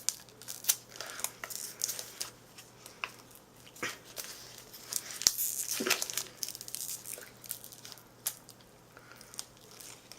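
Plastic snack wrapper being torn open and crinkled, an irregular run of crackles with a busier stretch about halfway through.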